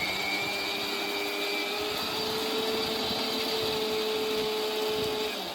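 Indian mixer grinder running with its large jar, grinding sautéed onion and tomato into a paste: a steady motor whine whose pitch rises slightly about two seconds in.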